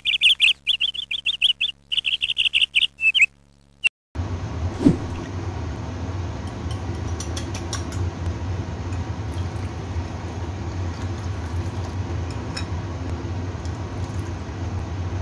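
Birds chirping rapidly for about four seconds, then a sudden cut to a steady low hum with a few light clicks of a wire whisk beating eggs in a bowl.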